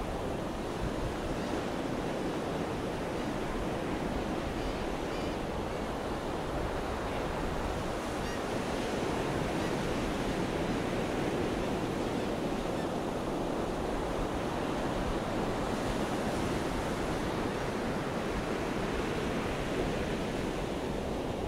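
Atlantic ocean surf: waves breaking and washing up the sand in a steady, continuous wash of crashing waves.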